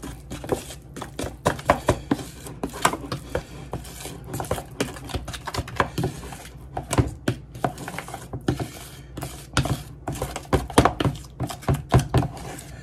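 A spoon stirring a thick powdered-sugar and lemon-juice glaze in a plastic bowl. It makes irregular clicks, taps and scrapes against the bowl.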